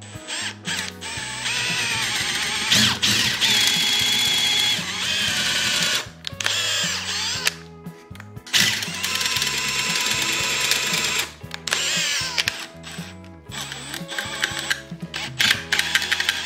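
Drill boring into a plywood block with an auger bit, running in several spells with short pauses between, over background music.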